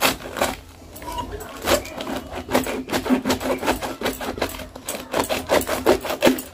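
A head of cabbage being sliced by drawing it against a boti, the fixed curved floor blade: a run of crisp cuts, about three or four a second, with one sharp cut right at the start.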